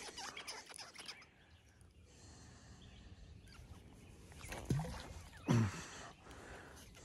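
A fishing lure swung and cast from a hand-line spool: two quick whooshing sweeps that fall in pitch, about four and a half and five and a half seconds in, the second the louder, as line runs off the spool. Rustling and clicking of handling in the first second.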